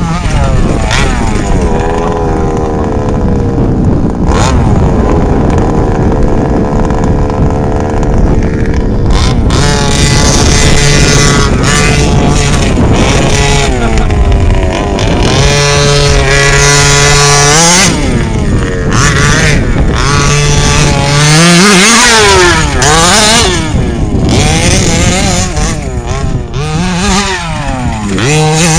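Two-stroke petrol engine of a large-scale FG RC buggy, revving up and down over and over as it accelerates and backs off around a dirt track, with short stretches held at a steady pitch between the rises and falls.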